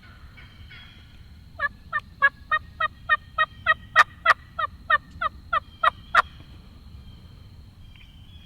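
A turkey call: a run of about sixteen evenly spaced yelps, some three or four a second, rising in loudness toward the middle and then easing off.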